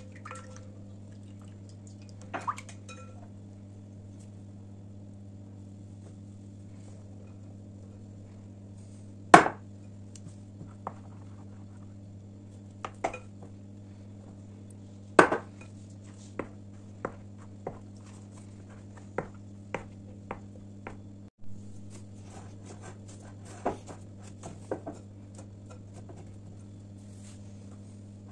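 Plastic spatula stirring a wet dough mixture in a glass bowl: soft squelching with scattered clicks and taps against the glass, and two sharp knocks, the loudest about nine seconds in and another about fifteen seconds in. A steady low hum runs underneath.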